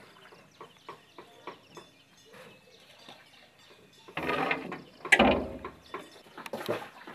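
Small wooden boat and its paddle knocking and scraping against a wooden floating raft house as the boat comes alongside. Scattered light clicks and knocks, a scraping rush about four seconds in, then one heavy hollow knock a second later.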